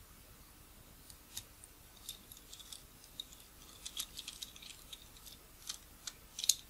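Faint, irregular small metallic clicks and scrapes of a precision screwdriver working a tiny screw in the metal barrel of a Nikkor 50mm f/1.4 AI-s lens, the loudest click just before the end.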